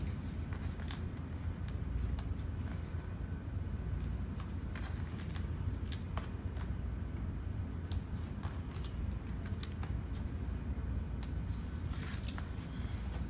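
Light, crisp rustles and ticks of hands handling a die-cut paperboard box blank on a table, over a steady low hum. Near the end comes a longer rustle as hands slide across the board.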